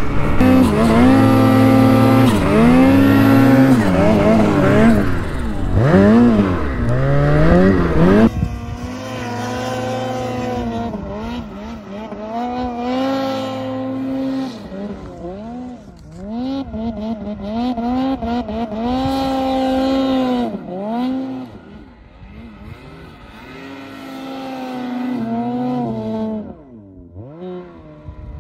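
Snowmobile engine revving hard, its pitch rising and falling, heard up close from the seat for about the first eight seconds. Then, after a sudden change, a snowmobile heard from further off, revving in repeated throttle bursts as it is ridden through deep powder on a slope.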